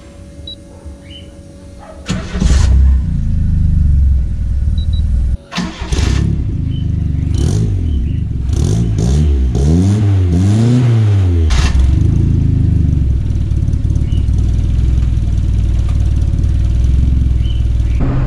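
Turbocharged Chevette DL's carbureted 1.6 four-cylinder engine starting up about two seconds in and idling. Around the middle it is revved in a few quick blips, rising and falling, then it settles back to a steady idle.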